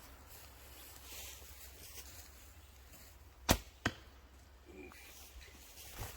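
An arrow shot from a traditional bow: a sharp snap of the string on release, then a second, slightly quieter smack about a third of a second later as the arrow strikes the 3D target.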